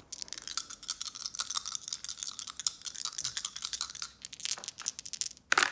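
Dice being shaken, rattling and clicking rapidly for about four seconds. A few scattered clicks follow, then a single louder clack near the end as they are thrown down.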